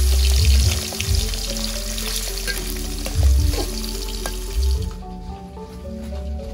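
Boiled chicken pieces sizzling as they fry in hot oil in a metal wok, with a few scrapes and knocks of a metal spatula against the pan as they are stirred. The sizzle drops away about five seconds in.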